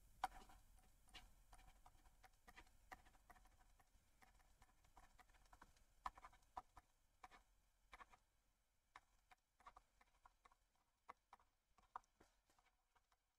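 Faint, irregular taps and clicks of a stylus writing on a tablet, some of them in quick runs.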